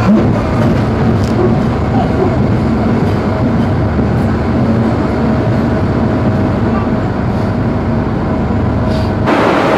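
Passenger train heard from inside a coach, running along the rails with a steady rumble and a faint steady hum. About nine seconds in, the sound cuts abruptly to a broad, even hiss.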